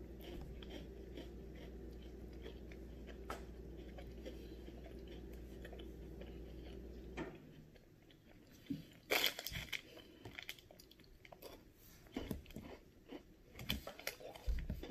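Close-up chewing and biting of an Oreo Twix candy bar: soft crunches and mouth smacks, more of them in the second half. A steady low hum sits underneath and cuts off about halfway through.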